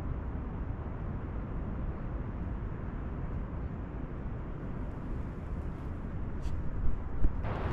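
Wind buffeting the microphone, a steady low rumble. Near the end there are a couple of bumps, then louder rustling.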